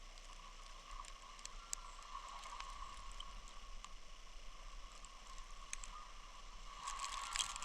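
Snowstorm ambience: a low, steady hiss with scattered light ticks, which crowd together briefly about seven seconds in.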